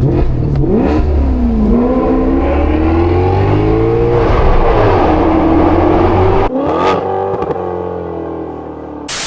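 Maserati GranCabrio's Ferrari-derived 4.7-litre V8 accelerating: revs climb and fall several times through gear changes, with a sudden break about six and a half seconds in, then running steadier and quieter. A brief hiss right at the end.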